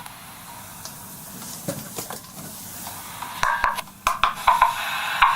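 Faint hiss, then from about three seconds in a run of sharp clicks and crackles as the megaphones are handled between recordings.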